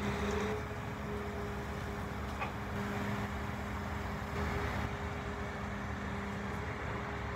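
Scania P400 crane truck's diesel engine idling: a steady low rumble with a constant hum.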